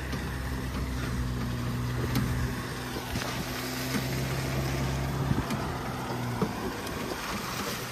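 Vehicle engine running steadily under load while a mud-stuck jeep is towed out, its wheels slipping, with an even rushing noise over it. The engine's hum drops away about six and a half seconds in.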